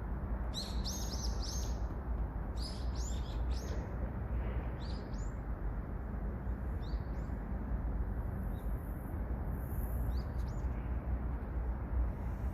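A small songbird singing phrases of quick, high, arching notes, the first two phrases about a second long and the later ones shorter and spaced a few seconds apart. Steady low background noise runs underneath.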